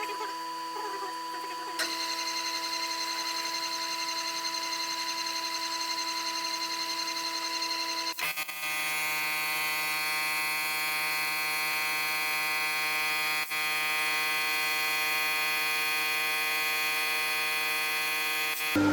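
Milling machine running under power as it drills out a broken bolt, a steady whine of several pitches. The pitch pattern shifts suddenly about two seconds in and again about eight seconds in.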